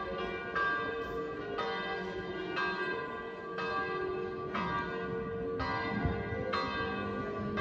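Church bell tolling, struck about once a second, each stroke ringing on under the next.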